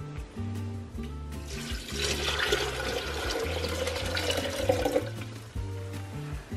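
Thick pumpkin drink poured in a steady stream into a glass, splashing and filling for about three seconds starting about two seconds in. Background music plays throughout.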